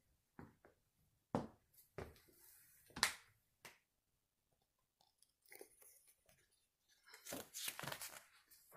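Faint, intermittent crinkling and clicking as a paperback picture book is handled, with a denser run of rustling near the end.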